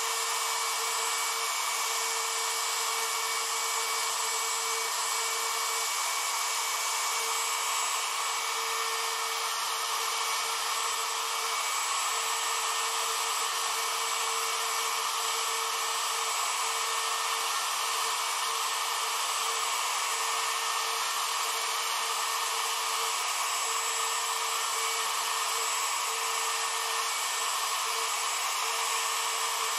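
Router spindle on an old Sidewinder CNC machine running steadily while an engraving bit cuts lettering into a board, giving a constant whine over cutting hiss.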